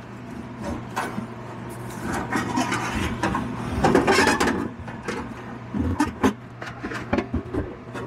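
Sheet-metal casing of a Dometic RV furnace scraping and knocking against its wooden cabinet as it is slid back into place, with scattered knocks and a louder stretch of scraping about four seconds in.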